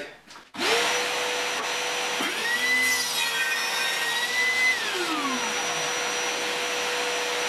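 Homemade table saw built on a Status SP190PL 1400 W handheld circular saw, switched on about half a second in and running with a steady whine. Between about two and five seconds in, the blade cuts through a wooden board at an angle, adding shifting tones to the whine.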